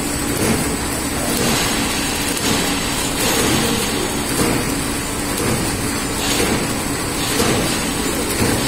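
Ice candy flow-wrapping machine running steadily, feeding film off its roll and carrying the ice candy sticks along its conveyor into the wrapper; an even, continuous mechanical running noise.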